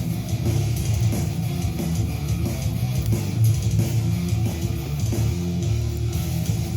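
Recorded band music led by electric guitar, with bass guitar underneath.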